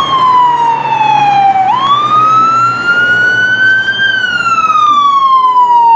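Ambulance siren sounding a slow wail. The pitch falls until nearly two seconds in, jumps up and climbs for about two seconds, then falls again.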